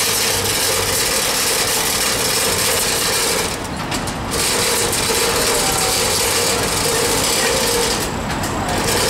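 An aerial boom lift's motor and hydraulics running with a steady whine and a hiss that ease off briefly twice.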